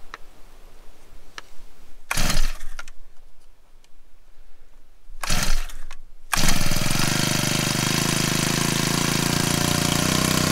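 Honda WX10 four-stroke water pump being pull-started from cold with the choke on: two pulls of the recoil starter, and the engine catches on the second, about six seconds in, then runs steadily.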